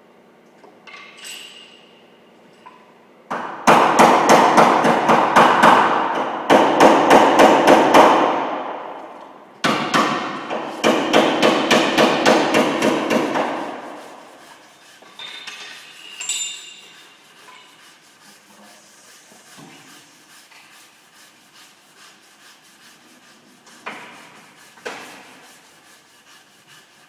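Hammer beating out dents in the steel rear fender of a Mitsubishi L200 pickup: two long runs of rapid, ringing blows on the sheet metal, with a few lighter knocks near the end.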